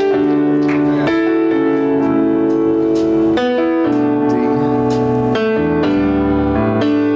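Electric keyboard playing slow, held chords that change every second or two, with a low bass line coming in about six seconds in: a soft instrumental passage from a church worship band.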